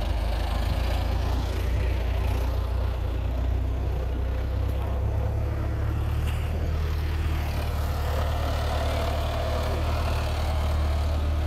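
Case IH 845 XL tractor's diesel engine running steadily, pulling on a cable hooked to a tree stump to tear it out by the roots.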